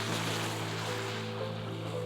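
Soft background music of held, slowly changing notes over the wash of a small wave running up the shore, which swells at the start and fades away.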